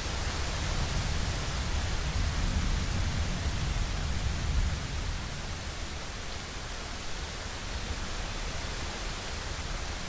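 Steady hiss of rain and wind, with a low thunder rumble that dies away about halfway through.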